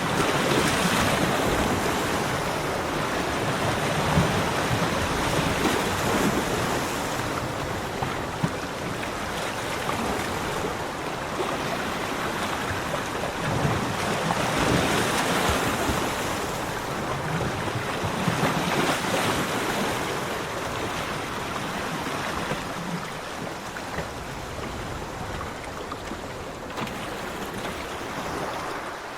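Sea waves breaking and washing up a beach, the surf swelling louder several times and easing off near the end.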